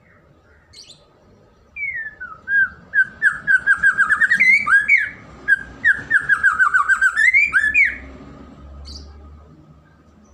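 White-rumped shama (murai batu) singing loudly: two phrases of rapid repeated whistled notes, about seven a second, each closing with rising upslurred notes. There is a short high note before the song and another after it.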